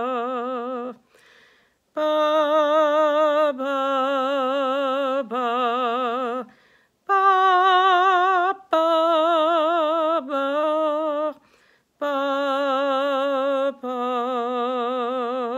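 A woman singing a vocal warm-up exercise: long held notes on an open vowel with a wide vibrato. The notes come in groups of two or three, stepping up and back down in pitch, with short breaths between the groups.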